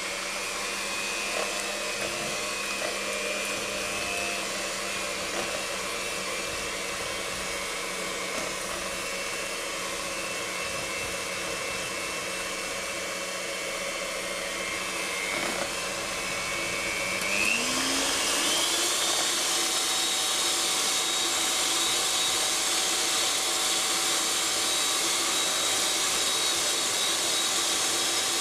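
Tefal Prep'line electric hand mixer running, its beaters whipping hot sugar syrup and gelatin at low speed. About 17 seconds in, its whine rises in pitch and gets louder as the mixer speeds up, then holds steady.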